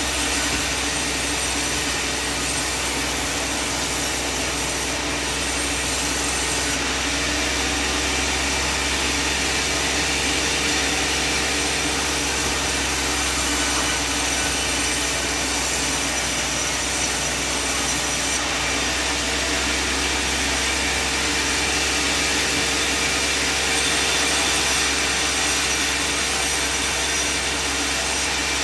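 Band sawmill running steadily, its blade cutting through a large timber, with the machine's motor running underneath as a constant drone.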